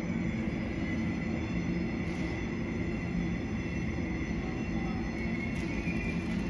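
Airport apron noise: a steady jet turbine whine with several high tones over a constant low rumble.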